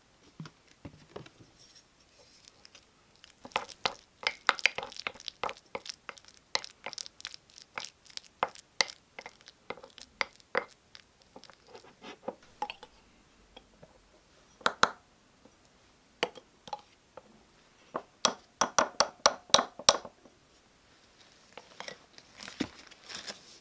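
A spoon scraping and clicking against a ceramic bowl as softened butter is mashed and stirred into a cream. The clicks come in quick runs, with a dense stretch early on and another quick run near the end.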